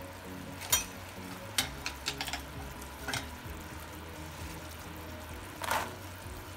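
Butter and brown-sugar syrup bubbling and sizzling in a nonstick pan, with pecan halves being stirred through it: a few sharp clicks and a short scrape near the end.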